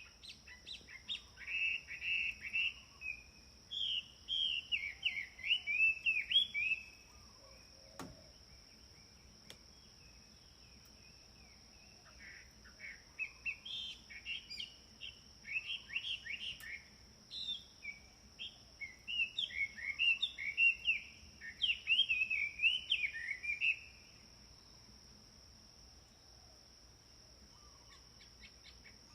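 A songbird singing in two long bouts of quick, varied chirping notes, with a pause of several seconds between them, over a steady high-pitched whine.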